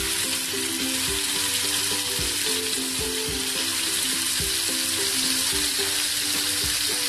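Marinated chicken pieces sizzling in hot oil in a nonstick frying pan as more pieces are laid in, a steady hiss of shallow-frying. Background music plays alongside.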